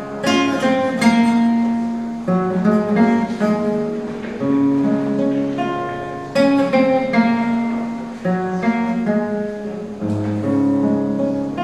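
Solo nylon-string classical guitar playing an instrumental passage of strummed and plucked chords, a new chord every second or two, each left to ring.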